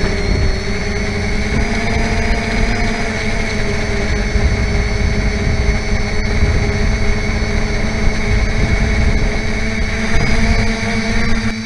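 Electric motors and propellers of an FPV model aircraft, whining steadily with slowly drifting pitch as the throttle changes, heard through the aircraft's onboard camera microphone with heavy wind rumble. The low rumble eases just at the end.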